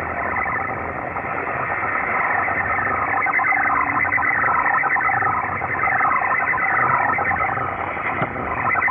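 Music from a Dutch shortwave station on 6210 kHz AM, heard through a Belka-DX receiver. It sounds narrow and muffled, with no high treble.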